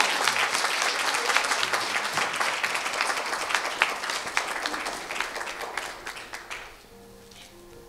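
Guests applauding, the clapping tapering off and dying away about seven seconds in.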